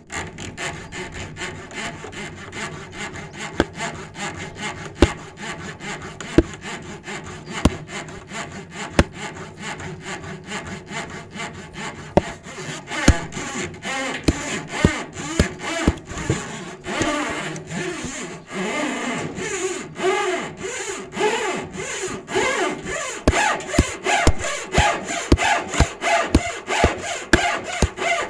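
A saw cutting through wood in repeated back-and-forth strokes. The strokes get faster and louder from about halfway through.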